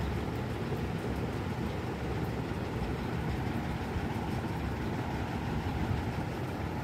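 A steady low mechanical rumble with no change in level.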